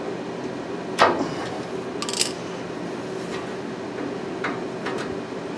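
Metal clicks and clinks as needle-nose pliers work a parking brake cable into its bracket on the truck's frame rail: one sharp click about a second in, a short clinking rattle a second later, and two lighter clicks near the end, over a steady hum.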